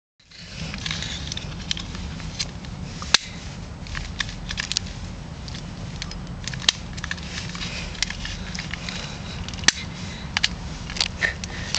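A long-nosed utility lighter being clicked at the fuel, with three sharp clicks about three seconds apart and many fainter ticks in between, over a steady low rumble.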